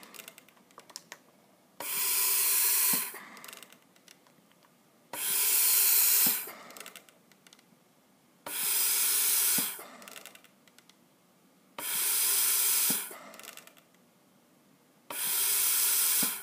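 Bird Mark 8 pneumatic respirator cycling a test lung: five rushing hisses of gas, each about a second long and starting abruptly, one every three seconds or so. Each hiss is a machine-delivered breath, set at about 20 breaths a minute with a one-second inspiratory time and a 500 cc tidal volume; a few faint ticks follow each breath.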